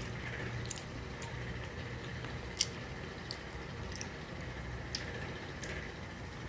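Metal fork cutting through a slice of cheesecake and clicking against a glass plate: a handful of light, scattered clicks, the sharpest about two and a half seconds in, over a low steady hum.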